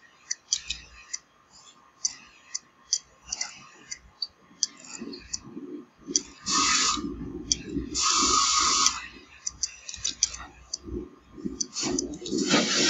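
Irregular sharp clicks, several a second, through the first few seconds, then bursts of rushing, hissing noise, each about a second long; the last burst, near the end, is the loudest.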